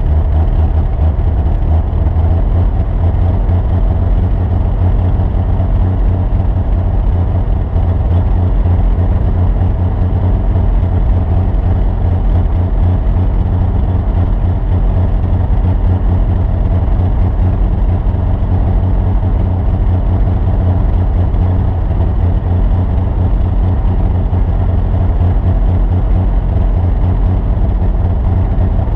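A vehicle engine running steadily with heavy low-end noise and no clear revving or stops.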